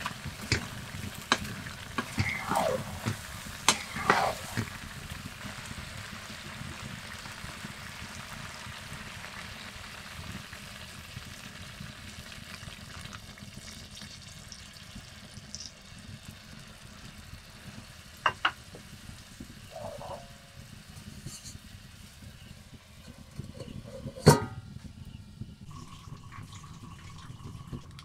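Chicken curry sizzling in a metal kadai while a spatula scrapes and knocks against the pan for the first few seconds. Water is poured in around the middle, and a single loud metal clank near the end is the lid going onto the pan.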